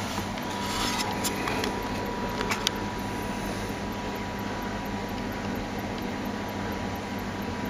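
Steady mechanical hum and hiss with a thin, steady high tone, and a few light clicks in the first three seconds.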